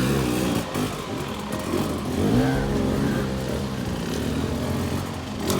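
Vehicle engine on an off-road trail, revving up and down a few times, its pitch rising and falling.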